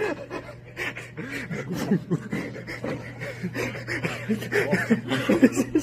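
Several men laughing and chuckling, with short bits of voice, over a steady low hum.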